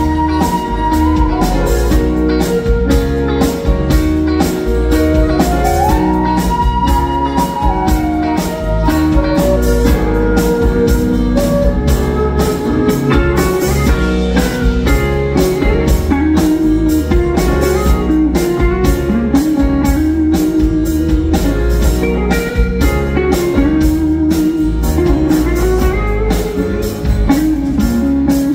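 Live soft-rock band playing an instrumental break: a flute holds and slides a high melody over the first several seconds, then an electric guitar carries the lead with wavering notes, over drums, bass, keyboards and strummed acoustic guitar.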